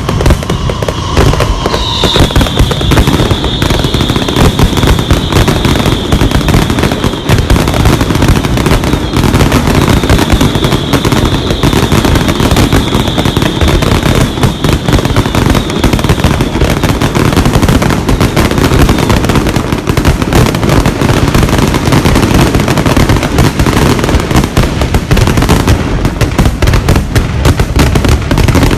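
Fireworks display, with a dense, unbroken barrage of rapid bangs and crackling. A steady high whistle runs through the first half.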